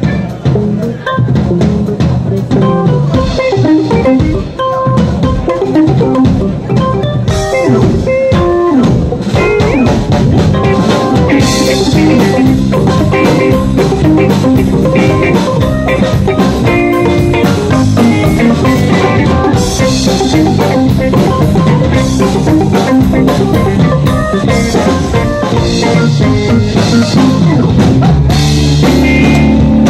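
Live rock band playing an instrumental passage: electric guitar and drum kit, with synthesizer keyboards. A fuller, sustained chord comes in near the end.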